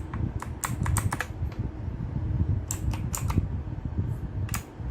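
Keys on a Gigaware K880 mechanical keyboard clacking in quick runs of presses, about three bursts with short pauses between, over a steady low hum.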